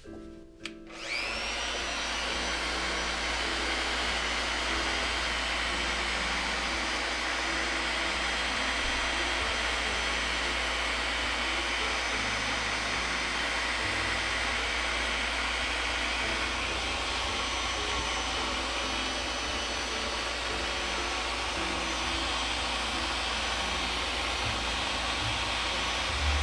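Electric random orbital sander switched on about a second in, its motor spinning up with a rising whine and then running steadily at full speed, used to buff an oil finish into wood.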